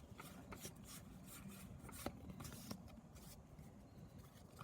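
Faint rustling and crackling of a Pokémon card booster pack and its cards being handled: a quick string of small crackles for about three seconds, with one sharper click about two seconds in, then sparser.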